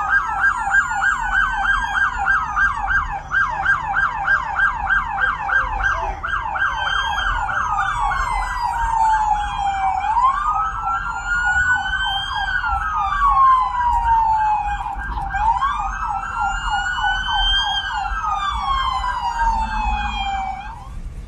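Police car sirens sounding together: one in a fast yelp of about three sweeps a second, the other in a slow wail rising and falling every five seconds or so, both cutting off just before the end. A low rumble of idling and passing cars lies underneath.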